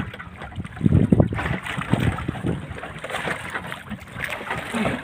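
Sea water splashing and sloshing at the side of a small outrigger boat as a hand works in the water, with irregular low wind gusts rumbling on the microphone.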